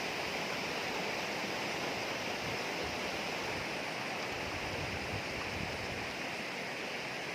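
Steady rush of flowing water, an even hiss-like noise without breaks.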